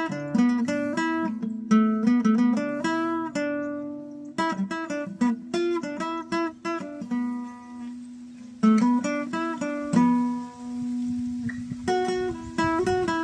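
Acoustic guitar played solo, fingerpicked and strummed notes with a few chords left to ring out.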